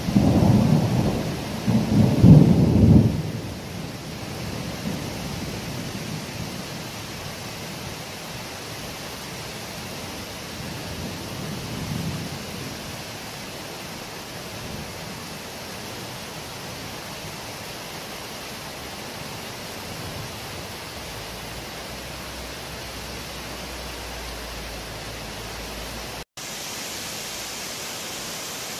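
Thunder rumbling loudly through the first three seconds and dying away, with a fainter rumble about twelve seconds in, over steady rain. Near the end the rain hiss turns brighter.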